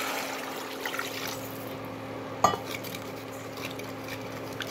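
A cup of water poured from a glass vessel into a steel pot of sautéed vegetables, splashing until about a second and a half in. A single sharp clink comes near the middle, then a wooden spatula stirs the watery mixture in the pot, over a steady low hum.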